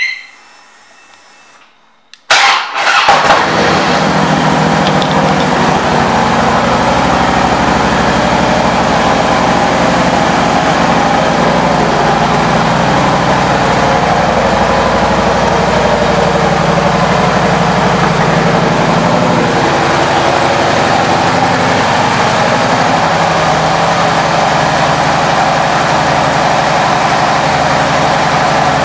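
2008 Harley-Davidson Road King Classic's Twin Cam 96 V-twin, fitted with a Vance & Hines exhaust, starting about two seconds in and then idling steadily.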